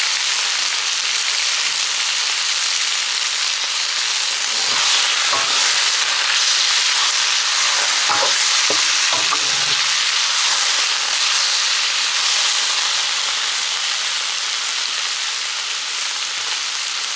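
Sliced beef and pork sizzling steadily in hot oil in a steel wok, with a metal wok ladle stirring and scraping against the pan a few times near the middle.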